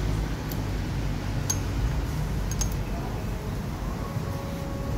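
A few light metallic clinks as the clutch plate and spacer shims of a car air-conditioning compressor are lifted off its shaft, over a steady low hum. Shims are being removed to close up a clutch air gap that has grown too large.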